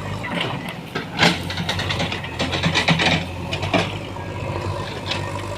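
JCB backhoe loader's diesel engine running steadily while it clears trees, with several sharp cracks and scraping of wood and branches breaking.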